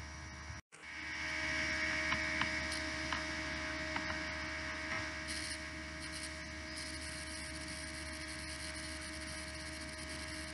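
Steady electrical hum with a hiss, the background noise of the recording, cut off for a split second near the start and then going on a little louder.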